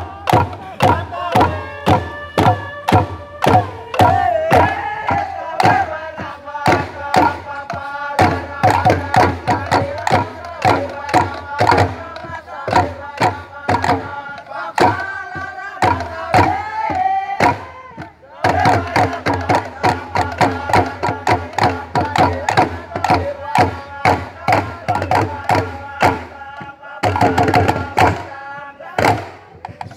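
A group of men chanting together to a steady percussion beat of about two to three strokes a second, in traditional ceremonial singing. The chant and beat break off briefly about two-thirds of the way through and again near the end.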